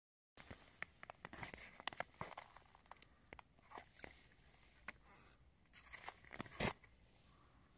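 Faint, scattered crunches and clicks of boots on snow-covered thin ice and of an ice-fishing tip-up and its line being handled at the hole, with one louder knock near the end.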